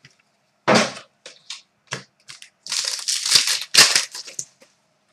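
Trading card pack wrapper crinkling as it is torn open, with a few short ticks of cards being handled. The crinkling is densest in the middle of the stretch.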